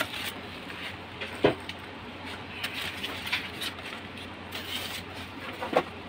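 Unboxing handling: a polystyrene foam packing insert pulled out of a cardboard box, with scattered rustling and scraping and two sharp clicks, one about a second and a half in and one near the end.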